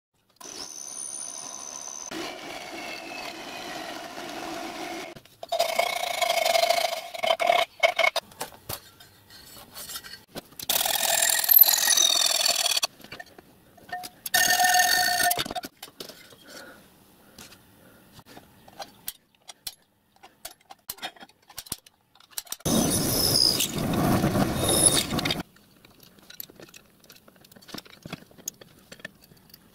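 Workshop tools cutting and working aluminium box section in a series of separate bursts a few seconds each, some with a whine that rises and falls, and a louder noisy burst near the end.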